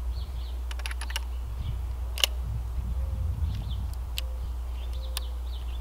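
Scattered sharp clicks of a .500 Smith & Wesson Magnum revolver being handled: a quick cluster about a second in, then single clicks every second or so, over a steady low rumble.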